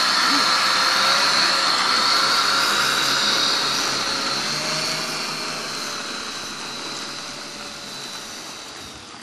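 Twin electric motors and propellers of a Multiplex Cargo RC model plane whining steadily as it taxis across grass, fading gradually as it moves away over the second half.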